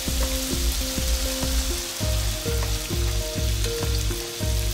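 Sliced mushrooms sizzling in a hot frying pan as chicken broth is poured in, with a spatula stirring them. Music with a steady, repeating bass line plays underneath.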